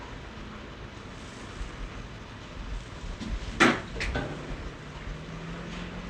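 Chiropractic spinal adjustment: one sharp, loud crack from the back joints, then a smaller crack about half a second later.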